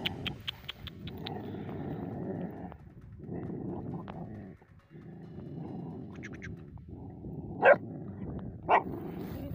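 Kangal puppies growling over a shared food bowl in long low stretches, a sign of food guarding: the male puppy won't let the female eat with him. Two short, sharp barks about a second apart near the end are the loudest sounds.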